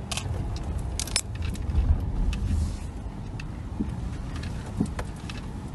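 A Subaru car driving off-road through deep snow: a steady low rumble from the engine and tyres, broken by sharp knocks and rattles as the car jolts along.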